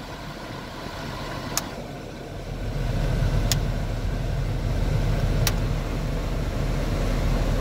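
Cabin of a 1988 Toyota Celica: the climate-control blower and the idling engine make a steady low rush, which grows louder about two and a half seconds in. Three sharp clicks about two seconds apart come from the vent-mode buttons being pressed, switching the airflow between vents.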